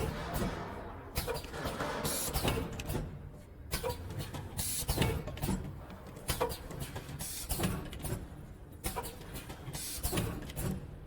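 Auger-screw powder packaging machine running: a repeating cycle of mechanical clicks and short hissing surges, about once every 1.2 seconds.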